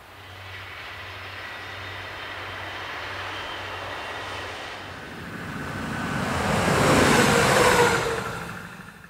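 Diesel railcars running past on the line. First a steady engine and wheel noise from a DB Class 612 passing at a distance, then a louder, closer pass that swells to a peak about seven to eight seconds in, its engine note falling in pitch as it goes by, before fading fast.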